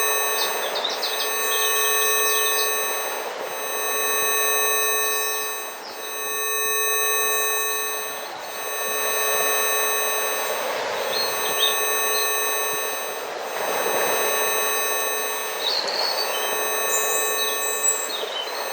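Several steady electronic tones at different pitches, the Rife frequencies, sounding together and swelling and fading about every two and a half seconds. Beneath them is a hissing bed of nature sounds with scattered bird chirps.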